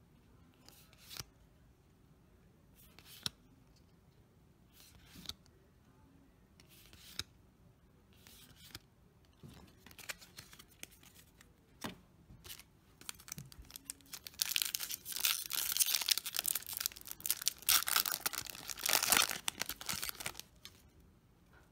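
Trading cards slid one by one off a hand-held stack, a soft swish every second or two. About two-thirds in, a foil booster pack is torn open, with loud crinkling and tearing for several seconds.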